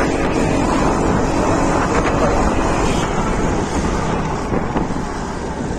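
Wind buffeting the microphone and road noise while riding an Aprilia Storm scooter, its engine running beneath the rush. The noise eases off a little near the end, as if the scooter is slowing.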